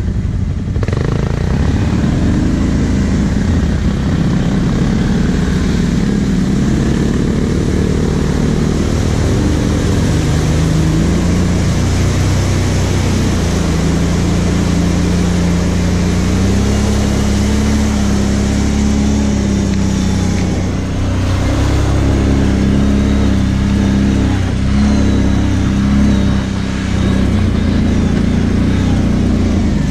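Kawasaki KVF 750 Brute Force ATV's V-twin engine running under way on the trail, its note rising and falling with the throttle, with brief drops in loudness about 21 and 27 seconds in.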